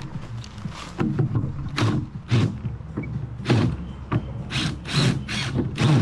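Cordless drill driving screws into timber in short, irregular bursts.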